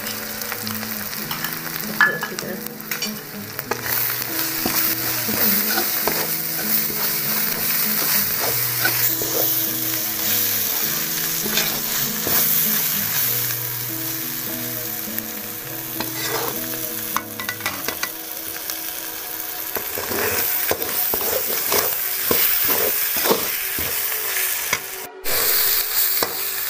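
Onion and ginger-garlic masala with ground spices sizzling as it fries in hot oil, while a metal spoon stirs and scrapes it around the pan. The spoon strokes come more often in the last third.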